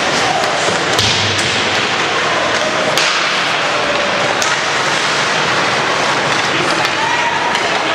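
Ice hockey play: a few sharp clacks of sticks and puck, the loudest about one second and three seconds in, over a steady hiss of skates and rink noise.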